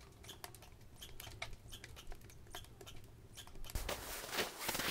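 Wood fire crackling: sharp, irregular pops and snaps. About three and a half seconds in, a louder, denser run of crackle and rustling noise sets in.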